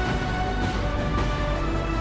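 Background music with sustained held tones over a steady low beat.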